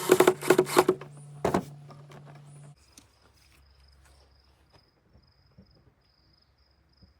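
A power tool running in short loud bursts, stopping a little under three seconds in. After that, faint insect chirping: short high chirps repeating about twice a second.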